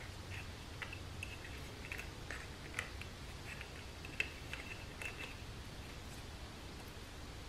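Faint small clicks and squeaks of rubber seals being pressed by hand into a metal transmission clutch piston, a scatter of short ticks that stops a little after five seconds in.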